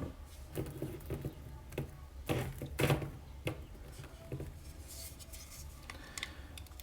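Scattered light clicks and taps of small hard objects being handled on a table, a few at a time with short quiet gaps between.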